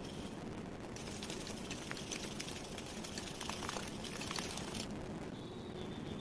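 Wire hand whisk beating a thick cream-cheese and icing-sugar mixture in a bowl: a rapid run of clicking and scraping as the wires strike the bowl. It starts about a second in and stops shortly before five seconds.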